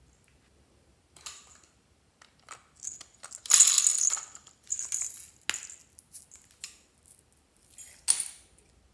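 Small hard plastic pieces clattering and rattling into a glass dish in several bursts, loudest about three and a half seconds in, along with handling of a plastic toy container.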